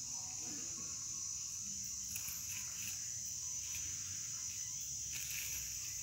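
Steady, high-pitched insect chorus, an even chirring held at one pitch throughout.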